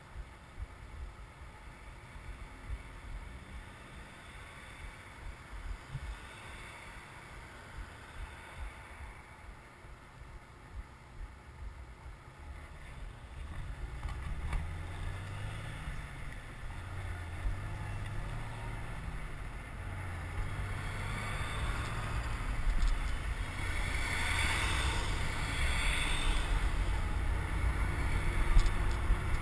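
Wind rushing over the microphone of a bicycle-mounted camera, mixed with road and traffic noise, getting steadily louder from about halfway through.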